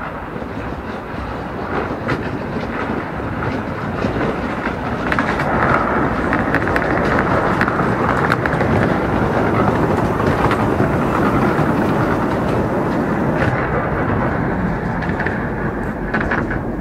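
A 10¼-inch gauge steam locomotive and its train passing directly beneath. The locomotive's working noise and the clatter of wheels on the rails grow louder, peak as the engine goes under, then ease off as the carriages roll away.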